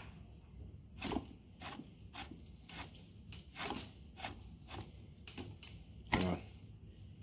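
6mm Creedmoor switch barrel being screwed by hand into a Terminus Zeus rifle action, metal threads giving light clicks and scrapes about twice a second as it turns, with one louder knock about six seconds in.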